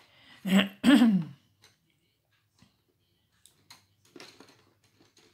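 Two short voiced sounds from a person, about half a second and a second in, the second falling in pitch; after them, faint scattered clicks and light taps.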